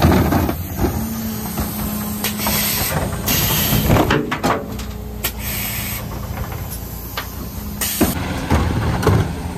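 Zoeller bin lifter on a Mercedes Econic refuse truck's Faun Variopress body lifting and tipping a wheelie bin of garden waste, with the truck running and a steady hum from the lifter's drive while it moves. The bin clatters as it is shaken out at the top about four seconds in, with short hisses and knocks as the lifter starts and as the bin comes back down near the end.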